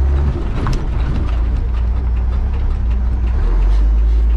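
Heavy diesel truck engines running hard under load as a 5-ton military truck and a diesel monster truck pull against each other, a loud low steady sound that turns rougher for about three seconds and then settles back.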